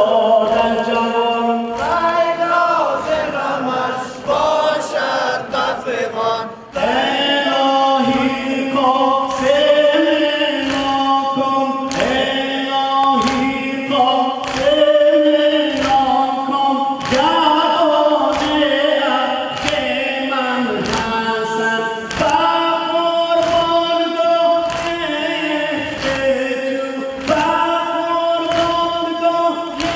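Shia noha lament sung by men, a lead voice and a group chorus, over a steady beat of hands striking chests (matam), about one and a half strikes a second.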